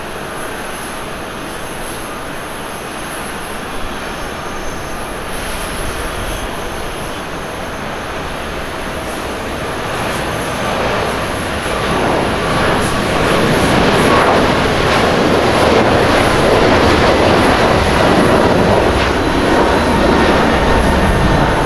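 Boeing 777-300 airliner's jet engines at takeoff power during the takeoff roll and liftoff. A steady rushing jet noise grows louder about halfway through and stays loud to the end.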